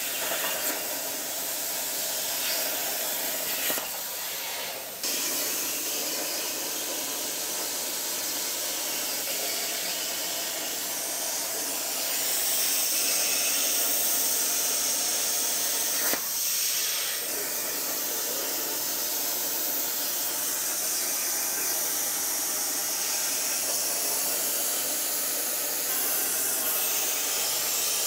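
Tormach 1300PL CNC plasma table's torch cutting steel plate: the plasma arc and its air jet make a steady hiss. The hiss shifts abruptly in level a few times.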